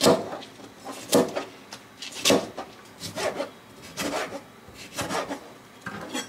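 Kitchen knife slicing vegetables and fruit on a plastic cutting board: a sharp knock of the blade on the board about once a second, with quieter scraping of the knife through the food between knocks.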